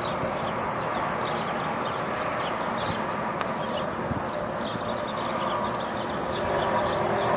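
Steady outdoor rushing noise, with small birds chirping in quick short notes throughout.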